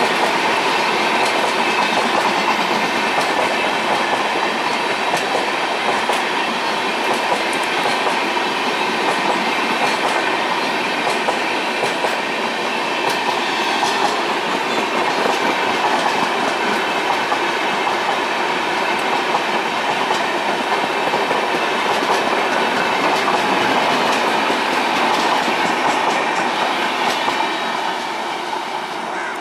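Express train coaches passing close at speed: a steady rumble and rapid clatter of bogie wheels over the rail joints. It starts to fade near the end as the rear of the train moves away.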